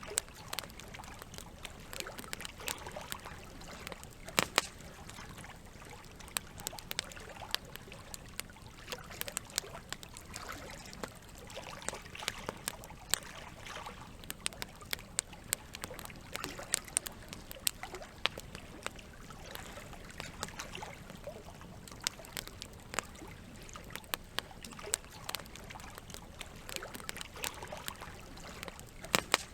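Campfire crackling, with irregular sharp pops, a few much louder than the rest, over the steady trickle of running water.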